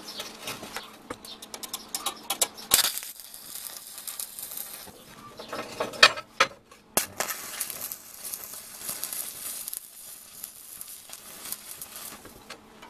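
Electric arc welding a steel rod to a round steel disc: irregular crackling with a few sharp snaps in the first half, settling into a denser, steadier high-pitched crackle in the second half.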